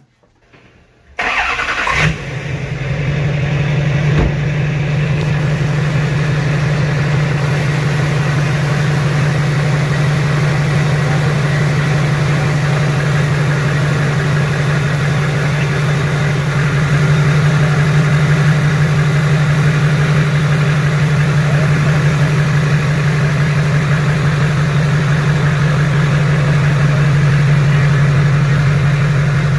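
Rebuilt LBZ Duramax 6.6-litre V8 turbo-diesel starting about a second in, then idling steadily.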